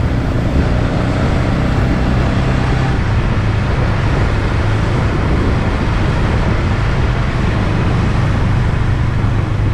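Motorcycle engine running steadily under way, with a constant low hum mixed with wind and road noise.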